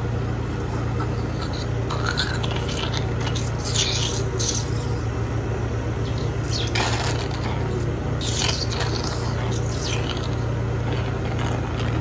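Oral suctioning of a child's mouth with a thin suction catheter: short slurping hisses of suction come several times, over a steady machine hum.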